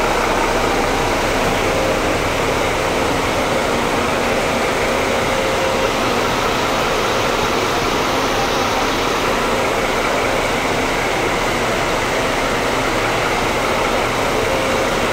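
Steady din of idling diesel coaches mixed with the even hiss of heavy rain, with no break or change.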